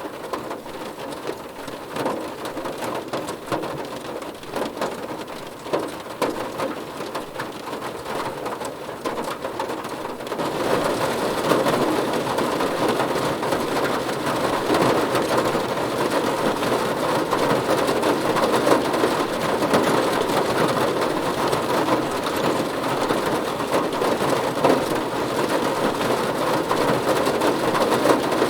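Rain drumming on a car roof: a patter of separate drops at first, turning louder and denser about ten seconds in.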